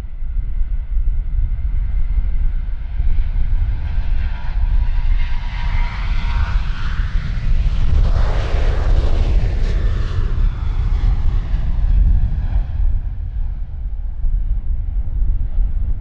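Boeing 737-800's CFM56 jet engines at takeoff power during the takeoff roll, swelling to a peak as the jet passes about eight to ten seconds in, then easing as it lifts off. Strong wind buffets the microphone throughout as a heavy low rumble.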